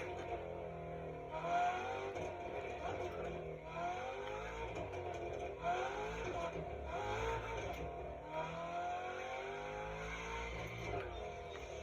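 Shelby Mustang V8 engine revving, its pitch climbing again and again in a series of rises every couple of seconds.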